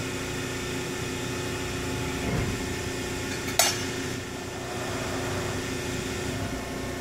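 Cincinnati 400H hydraulic press brake running with a steady hydraulic hum. A low swell comes about two and a half seconds in, and a single sharp metallic clack about a second later, while the machine cycles through a programmed bend.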